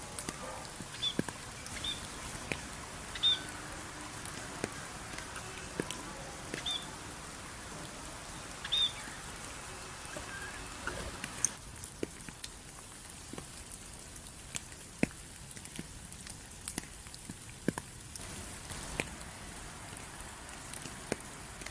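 Rain falling, with scattered drops tapping sharply, and a small bird giving short high chirps every second or two through the first half. About halfway the background hiss suddenly drops off and only the rain and drip taps carry on.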